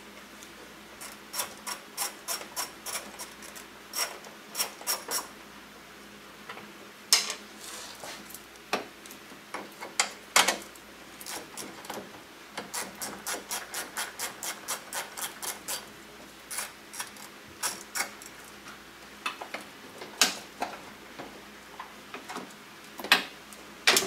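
Ratchet wrench clicking in runs as two 10 mm bolts are backed out, about three to four clicks a second, broken by a few louder knocks of tools against parts. A faint steady hum runs underneath.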